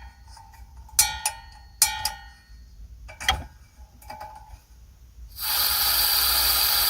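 Small portable propane heater being lit: the push-button igniter clicks several times with a short metallic ring, then about five seconds in the burner catches and a steady hiss of burning gas starts.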